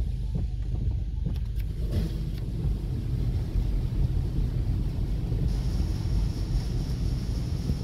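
Car wash sprays of a Petit Accutrac 360i automatic car wash drumming on the car's roof and windshield, heard from inside the cabin as a steady, dense low rumble. A higher hiss joins about five and a half seconds in, as a new spray pass starts on the glass.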